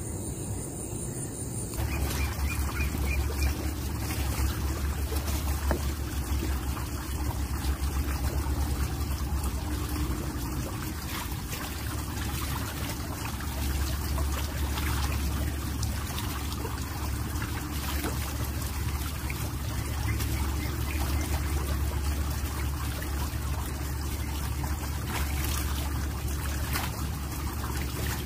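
Hands washing in a shallow pool: water trickling and splashing, over a steady low rumble.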